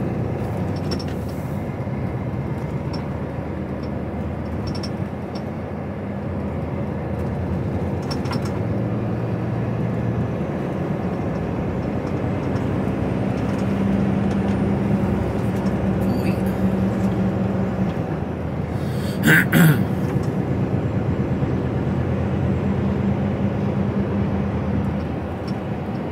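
Heavy goods lorry's diesel engine running on the move, a steady hum whose pitch rises and falls as the revs change. There are two short, loud bursts about two-thirds of the way through.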